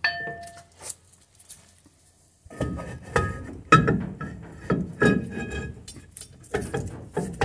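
Brake drum clinking, knocking and scraping against the brake shoes as it is pushed onto the hub. The shoes are adjusted out too far for it to slide on. A single ringing clink comes at the start, then after a quiet spell a run of metal knocks and ringing clinks from about two and a half seconds in.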